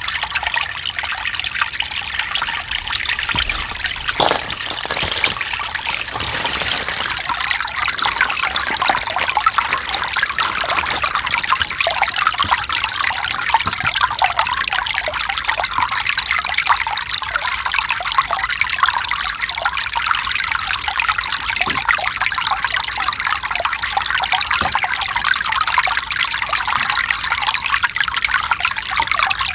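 Mountain stream: water trickling and splashing over rocks, a steady, busy babble, with a couple of brief low knocks about four to five seconds in.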